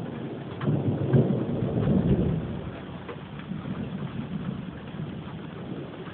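Thunder rumbling low, swelling again about a second in and then fading away, over steady rain with scattered drops ticking.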